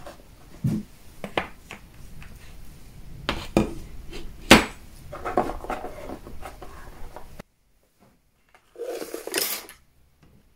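Brass carriage clock case parts being handled and set down in a parts tray: scattered light clinks and knocks of metal, the loudest about four and a half seconds in, with some rustling. The sound drops out about seven seconds in, leaving only one short rustle.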